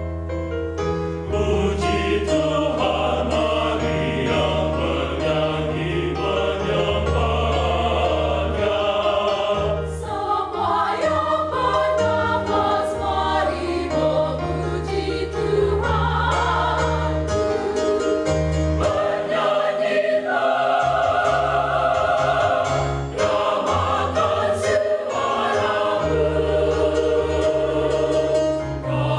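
A mixed choir of men and women singing together in parts.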